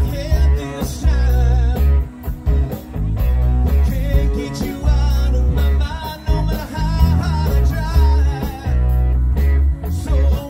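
A live rock band playing: a male singer's vocal over electric guitar, heavy bass and a steady drum beat.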